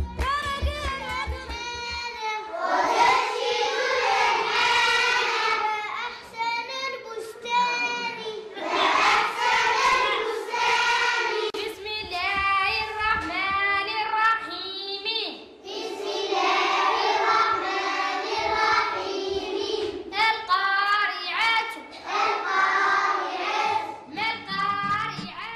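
Children singing a song together, phrase after phrase with short breaks between them.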